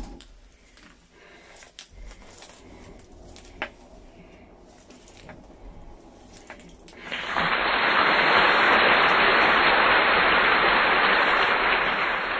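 Faint rustling and a few small clicks, then about seven seconds in a loud, steady hiss starts, holds for about five seconds and begins to fade near the end.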